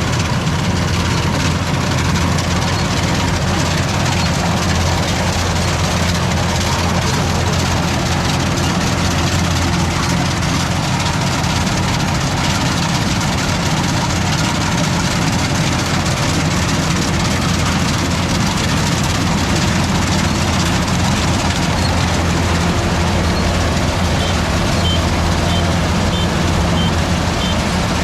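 An engine running steadily at a constant speed, an even low drone with no change in pace.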